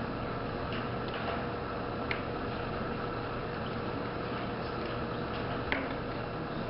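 Room noise with a faint steady hum and two small sharp clicks, one about two seconds in and one near the end. No guitar is being played.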